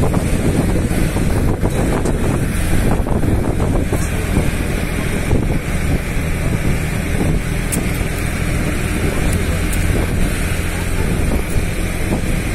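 Steady low rumble of a vehicle driving along a gravel mountain road, with wind buffeting the microphone.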